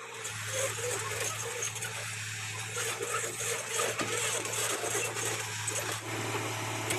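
Excavator's diesel engine running steadily under load.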